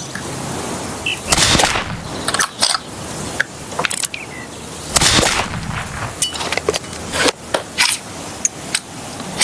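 Sniper rifle test-firing in a film soundtrack: several sharp gunshot cracks a second or more apart, the loudest about five seconds in.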